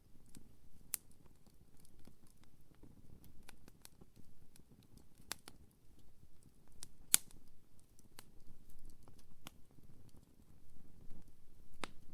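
Wood campfire burning: irregular sharp crackles and pops over a low, steady rustle of flame, with the loudest pop about seven seconds in.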